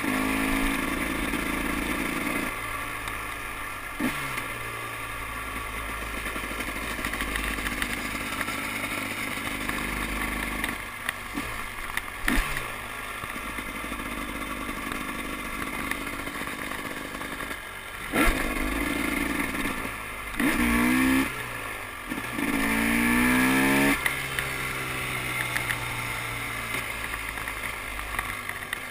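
2012 KTM 300 XC-W two-stroke single-cylinder dirt bike engine under way, its note rising and falling as the throttle opens and closes, with two louder rev-ups in the last third. Wind noise rushes on the microphone throughout.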